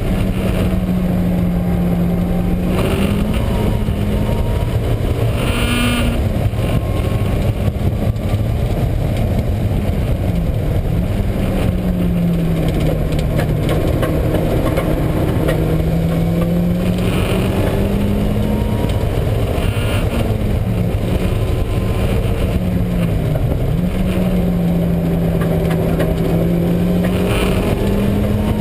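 Mazda Miata's four-cylinder engine running hard on track, its note rising and falling repeatedly, with a droning hum from a failing wheel bearing. The owner first took the drone for a transmission fault, and noticed it mainly under engine braking.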